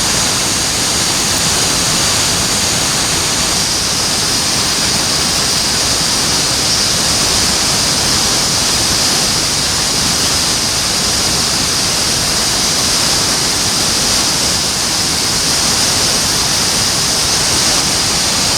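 Mountain stream water rushing over rocks: a steady, loud hiss that stays even throughout.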